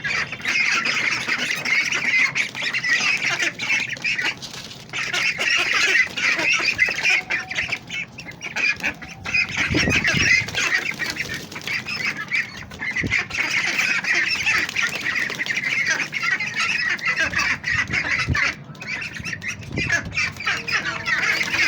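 A flock of white domestic ducks and ducklings calling over one another, a dense, continuous chatter of high peeps and quacks.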